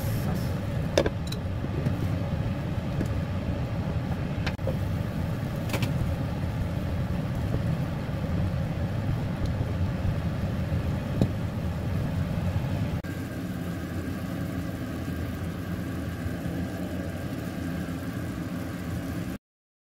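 A steady low hum over a pan of sauce cooking down, with a few sharp clicks of a spoon and spatula knocking against the nonstick frying pan during stirring. The hum changes a little about thirteen seconds in and cuts off abruptly near the end.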